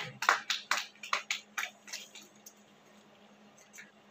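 Scattered hand claps from a small audience, irregular and thinning out, dying away about two-thirds of the way through, with a couple of claps again near the end. A steady low hum runs underneath.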